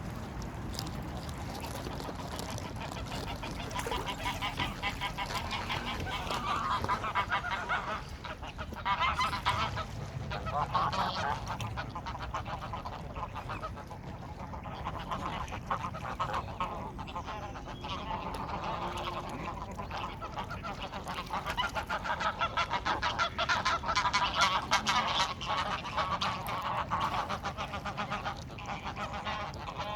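Geese and ducks calling in a dense, continuous chorus of rasping calls, swelling in two louder spells, about a sixth of the way in and again past two-thirds of the way through.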